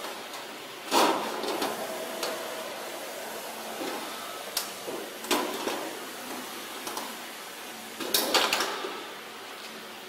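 Sheet metal plate clanking and rattling against a steel machine bed as it is handled into place, with one loud clank about a second in, several lighter knocks, and a rattling cluster near the end, over a steady workshop background noise.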